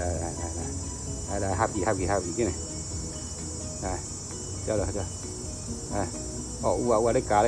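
A steady, high-pitched chorus of insects buzzing. Several short, louder warbling sounds come and go over it, the longest near the end.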